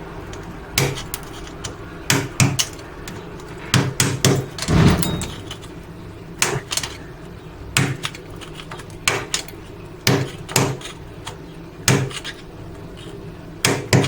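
A hammer tapping a new light switch, knocking its right side to force it into the wall. The taps come irregularly, singly and in quick pairs, about a dozen and a half in all, with short pauses between them.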